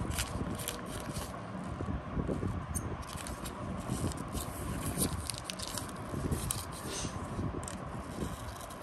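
Sealed trading-card packet wrapper handled by gloved hands: many small crackles and rustles as the packet is turned over and readied for cutting with scissors.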